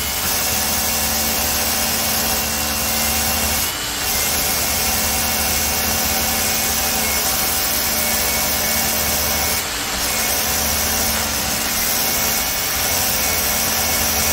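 Cordless SDS rotary hammers running flat out in hammer-drill mode, boring half-inch holes into a brick. A steady, dense hammering and grinding that dips briefly twice.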